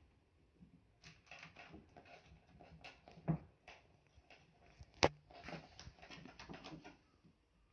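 A kitten scrambling and batting at a candy on a wooden floor: a quick run of light clicks and scrapes, with two sharper knocks about three and five seconds in.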